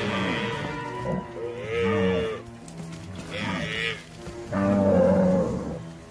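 Buffalo bellowing: about three drawn-out, wavering calls, the loudest a little before the end.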